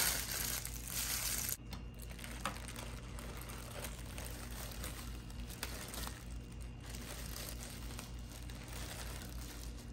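Plastic oven bag crinkling and rustling as hands pull it open and peel it back, louder for the first second and a half, then softer and steady.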